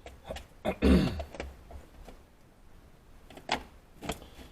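Handling noises from a plastic thread-repair kit case: several sharp clicks and knocks, with the loudest a short creak that falls in pitch about a second in.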